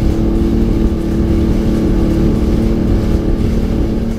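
Sea-Doo GTX jet ski running at speed, a steady engine note over the rush of churned water and spray.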